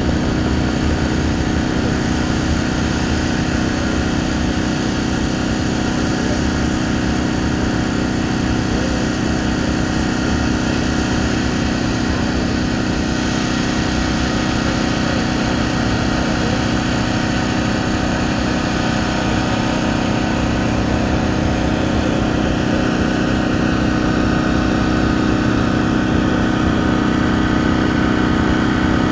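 Portable generator's small engine running at a steady, unchanging speed.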